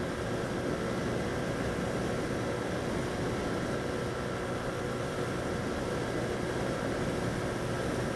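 Honda CG 125 motorcycle's single-cylinder four-stroke engine running steadily at cruising speed, mixed with the rush of wind over the handlebar-mounted microphone.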